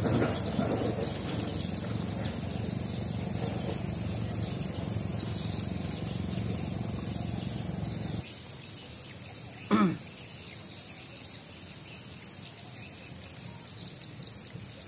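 Insects in riverside tropical forest keeping up a steady, high-pitched drone, with a low rumble underneath that drops away about eight seconds in. A single short call rises and falls near the ten-second mark.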